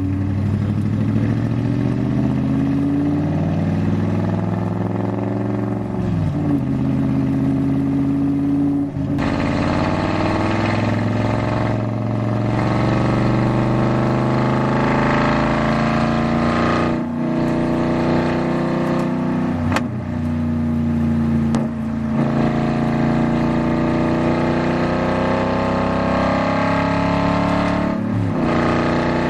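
Aston Martin GT4 race car's V8 engine heard from inside the cockpit, accelerating hard through the gears: the engine note climbs and drops back sharply at each upshift or lift, several times.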